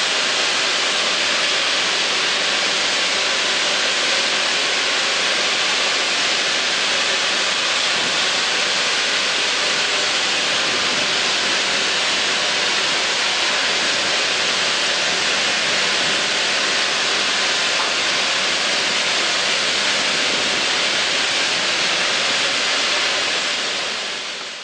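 Steam venting with a loud, steady hiss, fading out near the end.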